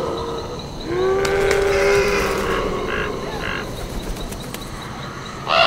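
Halloween animatronic ghoul's sound effect: a drawn-out monster groan about a second in, followed by two short raspy calls.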